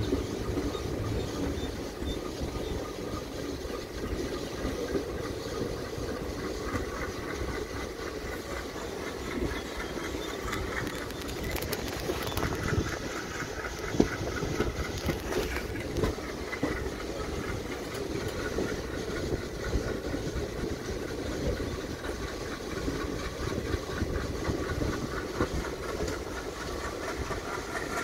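Passenger train leaving a station, heard from an open coach doorway: the steady running noise of the coaches on the rails, with one sharp click about halfway through.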